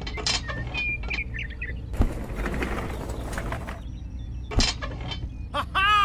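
Small clicks and taps of toy tractor parts being handled and fitted, over a steady low hum, with a hissing whoosh in the middle and a sliding pitched tone that rises then falls near the end.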